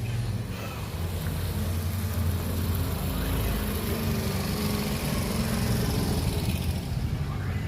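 A motor vehicle engine idling steadily with a low hum.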